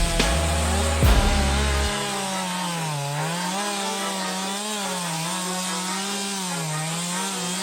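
Chainsaw running as it cuts into wood, its engine pitch wavering up and down as the bar takes and loses load. A deep bass beat underlies the first two seconds.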